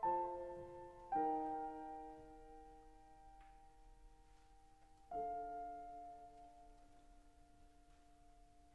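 Soft background piano music: slow, sustained chords, struck three times and each left to ring and fade.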